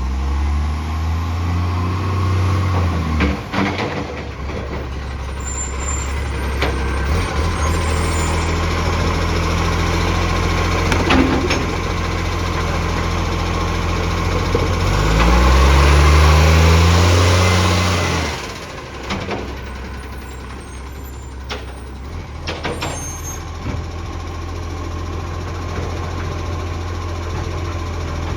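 A garbage truck's engine running with an exhaust leak. It revs up near the start, runs steadily, then revs up again about halfway through and holds high for a few seconds before dropping back. There are a few sharp knocks along the way.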